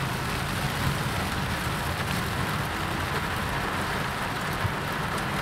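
Heavy rain falling on a car's roof and windshield, heard from inside the moving car, over a steady low rumble of engine and road noise.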